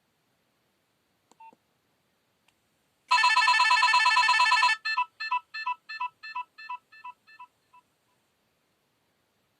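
Nokia 6030 mobile phone playing one of its built-in alert tones through its loudspeaker. A faint blip a little over a second in is followed, about three seconds in, by a fast electronic trill, then a dozen separate beeps, about four a second, that grow fainter and stop.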